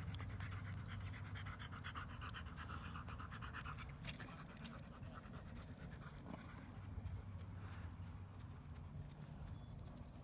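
A dog panting quickly and rhythmically for the first few seconds, then fading, over a low steady rumble.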